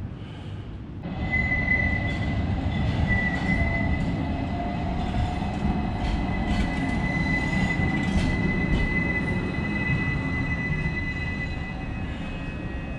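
An Istanbul T1 low-floor tram pulling into the stop. It rumbles on the rails with a steady high-pitched squeal that starts about a second in and fades near the end.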